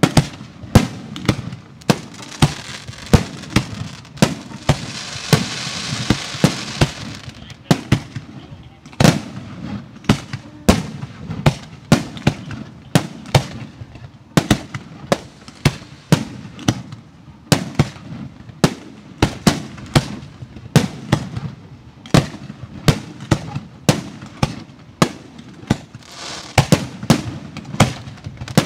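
Professional 1.3G fireworks display: sharp bangs of shells bursting in steady succession, about one or two a second. There is a stretch of dense hissing about four to seven seconds in.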